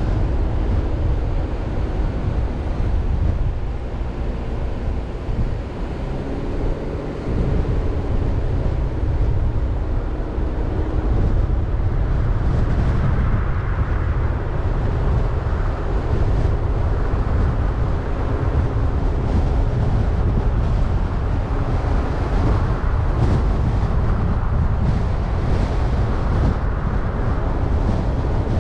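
Car driving: steady low road rumble with wind noise buffeting the microphone.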